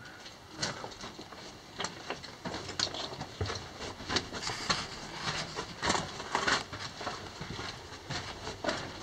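Footsteps crunching and scuffing on the loose rocky floor of a narrow mine tunnel, an uneven walking pace of about two steps a second.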